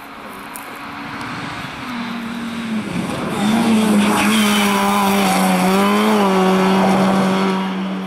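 Rally car engine at high revs, growing louder as the car comes close. Its pitch dips and rises a few times, then holds steady near the end.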